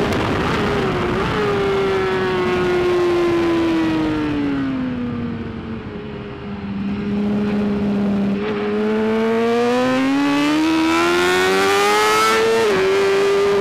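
2013 BMW S1000RR inline-four racing engine at high revs. It runs down through the revs as the bike slows for a corner, stays low and quieter around the middle, then climbs steadily under hard acceleration, with a sharp upshift drop in pitch near the end. Wind rush underneath.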